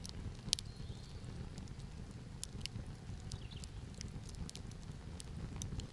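Small campfire crackling, with irregular sharp pops over a steady low noise.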